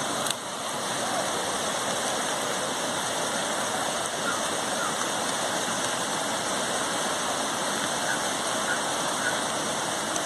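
Fast-flowing muddy floodwater from a breached channel rushing past in a steady, unbroken wash of noise.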